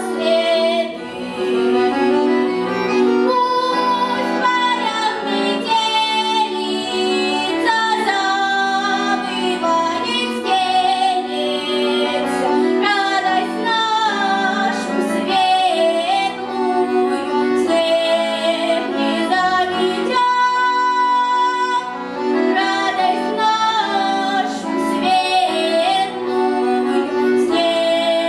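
A girl sings a lively Russian folk-style song to button accordion (bayan) accompaniment, her melody over steady accordion chords. About twenty seconds in she holds one long note.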